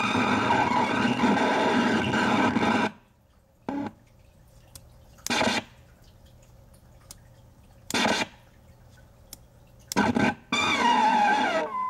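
Circuit-bent Fisher-Price Junior Asparagus Bedtime Buddy talking plush glitching through its small speaker: a dense, distorted electronic warble that cuts off about three seconds in, then a few short blips, and starts again near the end with a wavering, sliding pitch.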